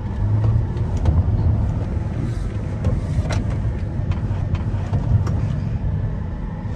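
Cabin noise of a Ford being driven: a steady low road and engine rumble, with a few faint ticks.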